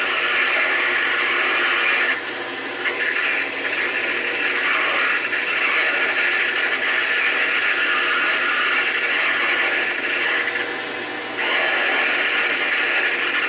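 Metal lathe turning a metal round bar, the cutting tool scraping steadily against the spinning bar. It eases off briefly twice, about two seconds in and again near the end.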